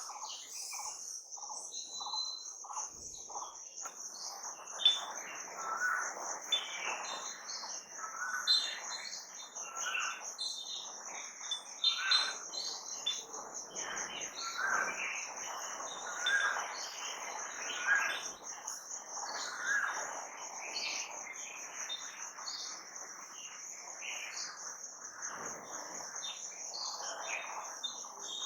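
Songbirds chirping and calling, one repeating a short call about every two seconds, over a continuous high-pitched insect drone.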